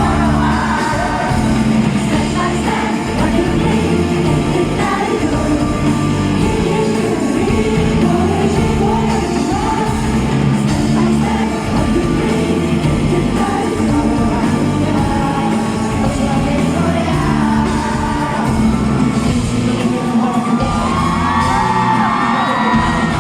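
Live rock band playing a song with a lead singer, heard from the audience, with fans shouting and whooping along.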